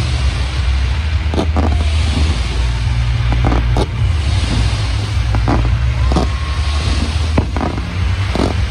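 Fireworks bursting over the water: repeated sharp bangs every second or two, often in pairs, over a steady low rumble.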